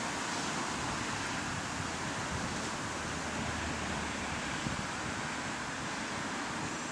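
Steady running noise of a bus, an even hiss and rumble with no distinct events.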